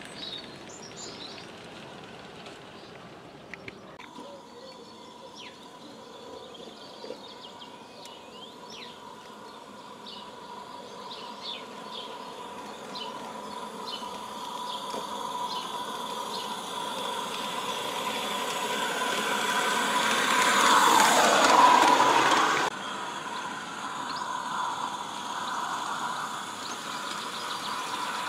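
A 16mm-scale live-steam garden railway locomotive and coach running along 45mm track, with a steady high whine, getting louder as the train comes close and passes about 21 seconds in, then cut off suddenly; a quieter running sound follows.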